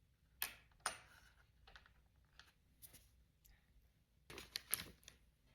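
Small hard parts being handled: a few sharp clicks, then a quick cluster of clicks and clatter near the end, as metal heatsink mounting brackets are set onto plastic dampening bushings.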